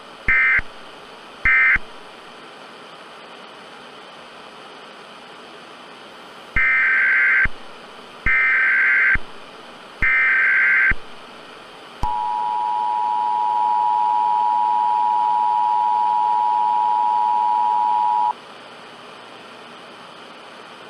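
Emergency Alert System tones. Two short screeching SAME data bursts near the start close out the previous message. After a few seconds of hiss come three longer SAME header bursts, then the EAS two-tone attention signal (853 and 960 Hz together), held steady for about six seconds. A constant tape-like hiss runs underneath.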